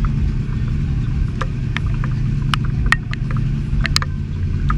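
An engine running steadily at a low pitch, with scattered sharp ticks and taps over it.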